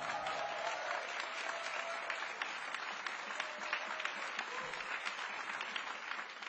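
Audience applauding: a dense, steady patter of many hands clapping right after the band's final chord.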